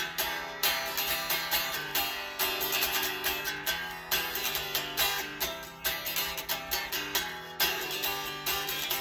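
Unplugged electric guitar, played without an amp and heard only from its strings and body, picked and strummed in a quick run of notes, several a second.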